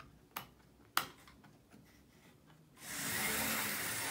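Two sharp clicks, then about three seconds in OO gauge model locomotives start running on the track with a steady motor whir.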